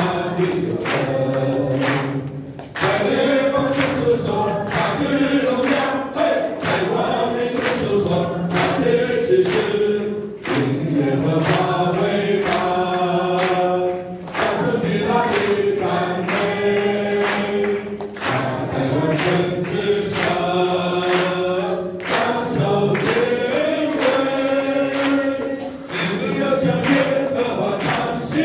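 A group of voices singing a song together as a choir, in phrases with short breaks every few seconds, over a steady beat of sharp regular strikes.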